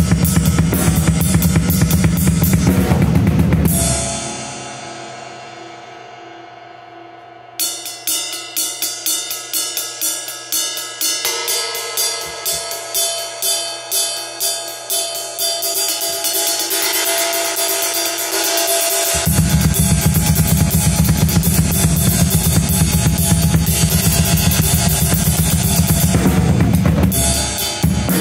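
Drum kit played hard with bass drum, snare and cymbals. About four seconds in the drums stop and a cymbal rings out and fades. From about seven seconds a ride cymbal is struck alone in even strokes, about two a second, each left ringing, until the full kit comes back in about nineteen seconds in.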